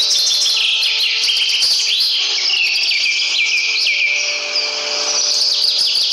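Many small birds chirping and twittering together, quick overlapping chirps with no break.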